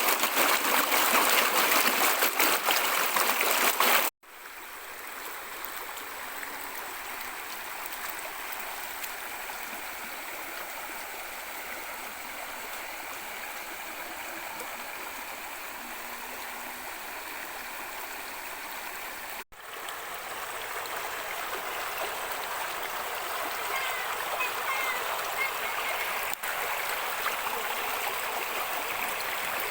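Mountain stream flowing, a steady rush of water. The sound drops out abruptly twice, about four seconds in and about twenty seconds in; it is louder before the first break, softer between them, and grows louder again after the second.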